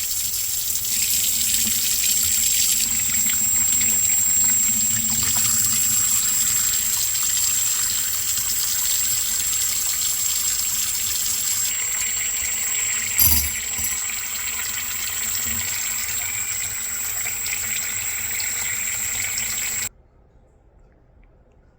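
Water running steadily from a tap into a sink, with a single knock about two-thirds through; the running water stops suddenly near the end.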